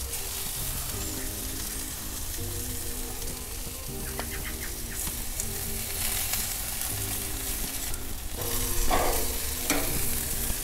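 Chicken thighs sizzling on a hot gas grill as a sauce glaze is brushed on, with a few light clicks. Soft background music with a slow stepping melody plays underneath.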